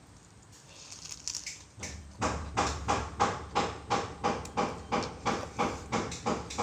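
Close-miked chewing of a mouthful of instant noodles. After about two seconds of near quiet, it becomes a steady rhythm of about three chews a second.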